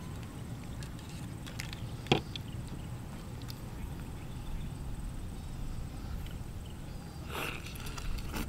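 Cooked giant prawns being peeled by hand, their shells crackling, with one sharp crack about two seconds in. A low wind rumble on the microphone runs underneath.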